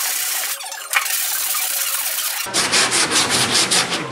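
Hand sanding block with sandpaper being worked over body filler on a car fender, block sanding the filler level. It starts as a steady sandpaper hiss, then about halfway through turns into quick rasping strokes, about six a second.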